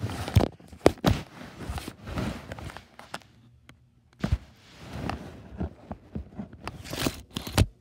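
Handling noise from a phone being moved about: irregular knocks, bumps and rustling, with the strongest thumps about half a second in, about four seconds in and near the end.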